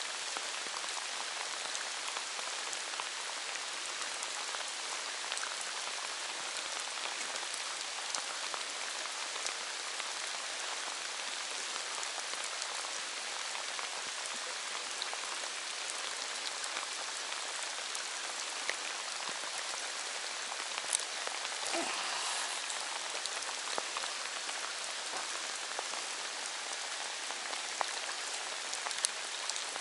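Steady rain falling, a dense patter of small drops hissing on the surfaces around.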